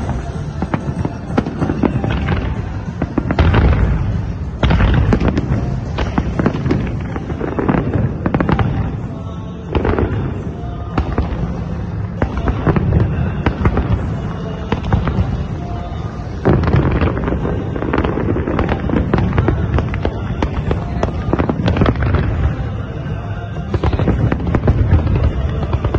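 A fireworks display going off in rapid succession, a dense run of bangs and crackling bursts, with music playing underneath.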